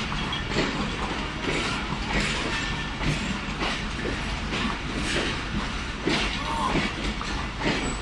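Pakistan Railways passenger coaches of the Jaffar Express rolling slowly past as the train arrives. The wheels clack over the rail joints in a steady run of knocks, about two a second, over a constant rumble.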